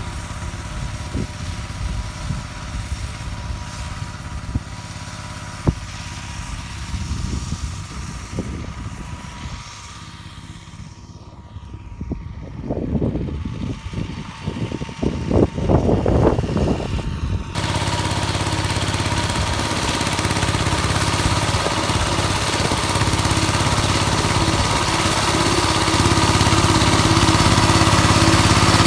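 Engine of a homemade motor-tractor converted from a walk-behind tractor running, at first with uneven rumbling and thumps. About two-thirds of the way in it turns abruptly to a steady, louder engine sound.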